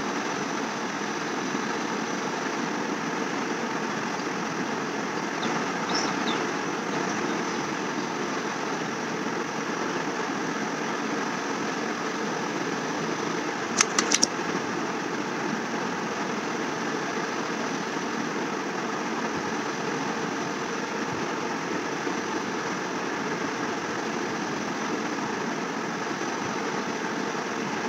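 Steady, even mechanical background noise, like a running machine, with three quick sharp clicks about halfway through.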